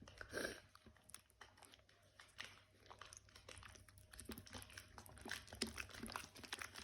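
Slime being stirred with a mixing stick in a pot: faint, irregular sticky clicks and squelches. The activated slime is forming a mass and starting to pull away from the sides of the container.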